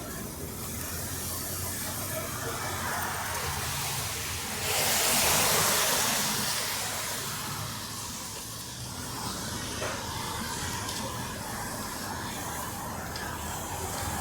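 Traffic on a rain-wet street: a vehicle passes about five seconds in, its tyres hissing loudly through the water on the road, over a steady low rumble of traffic.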